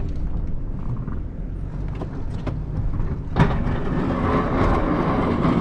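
Plow truck engine running steadily, heard inside the cab, with a single sharp knock about three and a half seconds in, after which the sound gets louder and rougher.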